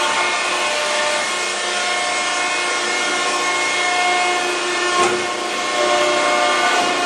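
Hydraulic power unit of a Mosley guillotine shear running: 100 horsepower electric motors driving Vickers hydraulic pumps give a steady whine over a mechanical hum. A short knock is heard about five seconds in.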